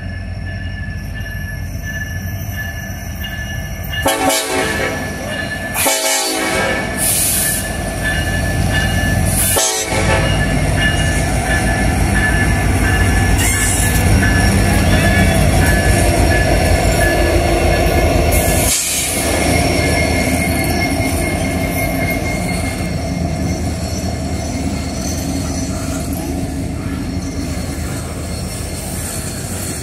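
EMD SD70ACe diesel-electric locomotives approaching and passing, their diesel engines rumbling louder as they come by, with several train-horn blasts a few seconds in. A string of loaded hopper cars follows, rolling by with steady wheel-on-rail noise.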